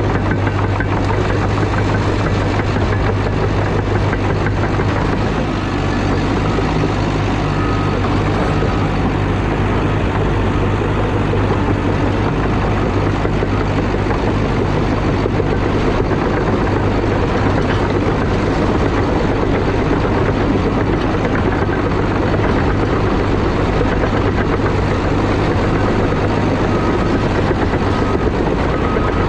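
CAT D5 crawler dozer's diesel engine running steadily with a low drone, with short faint beeps a few seconds in and again near the end.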